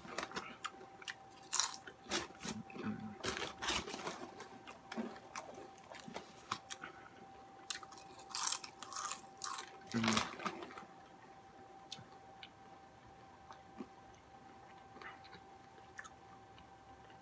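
A crunchy snack being bitten and chewed, with loud, irregular crunches for about the first ten seconds, then quieter, sparser chewing.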